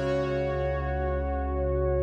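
Background music: a slow ambient synthesizer pad holding steady chords.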